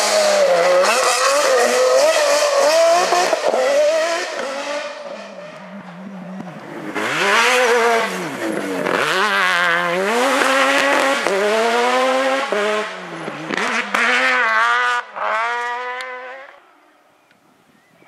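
Off-road rally cars passing flat out on a dirt stage. The first engine runs loud and then fades within the first few seconds. A second car comes in about seven seconds in, its engine revving up and down over and over through gear changes and wheelspin as it throws up dirt, then dies away near the end.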